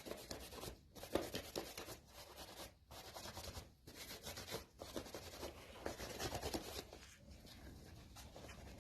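Faint, irregular rubbing strokes of waxed, black-dyed vegetable-tanned leather being buffed to a shine.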